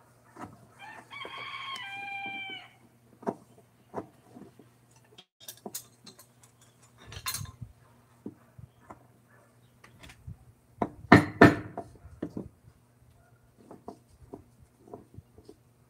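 A rooster crows once, a long call, about a second in. Scattered knocks and taps run throughout, the loudest a quick cluster of knocks about two-thirds of the way through, over a steady low hum.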